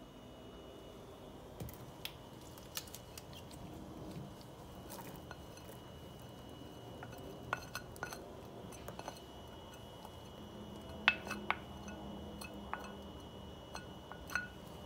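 A wooden spoon scraping chopped garlic out of a glass bowl into a stainless steel pot of melted butter, with scattered light clinks and taps of spoon and glass; the loudest clink comes a bit past halfway.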